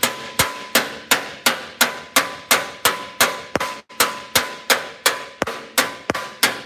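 Spoon hammer tapping the sheet metal of an aftermarket Volkswagen Beetle fender in a steady run, about three blows a second, each with a short metallic ring, knocking down a high spot in the panel.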